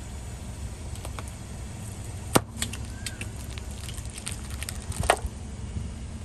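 Car tyre rolling over a plastic squeeze bottle of red sauce on concrete, crushing it until it bursts: two loud sharp snaps, about two seconds in and about five seconds in, with lighter crackles between, over the low steady rumble of the car.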